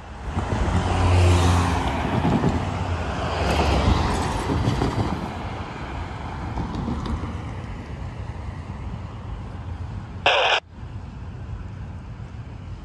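Road traffic at a street crossing: a box truck passes close by in the first few seconds, then steady traffic rumble. About ten seconds in comes one loud blast about half a second long.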